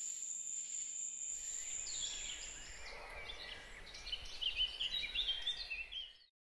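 Sound-effect night-to-dawn ambience. A soft hiss with a steady high whine of night insects gives way, about two seconds in, to birds chirping and twittering in quick rising and falling calls. It cuts off suddenly about six seconds in.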